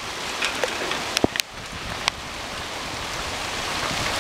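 Hail pelting a garden: a steady dense hiss of hailstones striking paving, gravel and plants, with a few sharp, louder clicks between one and two seconds in.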